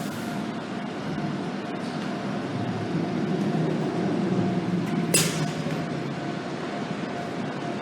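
Sanyo Electric Railway train passing a level crossing: a low rumble builds about three seconds in, with a single sharp crack about five seconds in, over the steady ringing tone of the level-crossing alarm.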